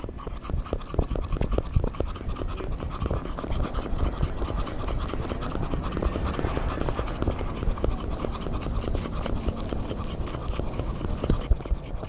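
Dog panting close to a camera strapped to its body, with scraping and footfall noise from its movement.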